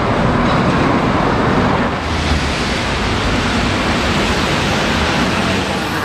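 Red London double-decker bus running along a city street: a steady engine hum under a loud, even rush of road and traffic noise, easing slightly about two seconds in.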